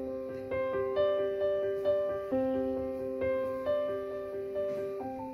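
Background piano music: a slow melody of single struck notes, about two a second, each ringing and dying away over held chords.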